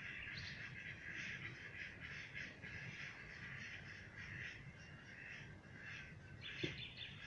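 Many birds calling together in a dense, continuous chorus of overlapping calls, with one short sharp sound near the end.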